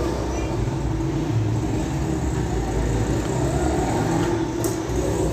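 Steady low background rumble and hum, with no distinct strikes or changes.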